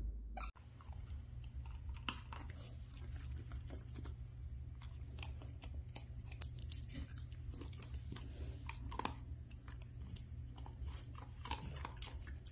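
A dog chewing small dry treats, a steady run of crisp crunches and bites starting about half a second in, over a low steady hum.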